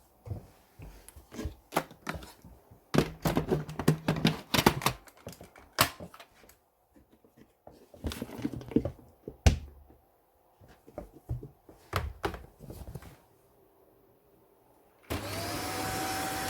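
Irregular knocks, clicks and clatter of hard parts being handled, then a vacuum cleaner switched on near the end, its motor spinning up to a steady whine.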